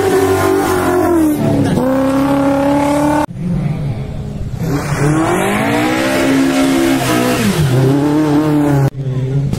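Rallycross car engines revving hard through a corner, the pitch climbing and dropping again and again with throttle lifts and gear changes. The sound breaks off abruptly twice where separate passes are joined.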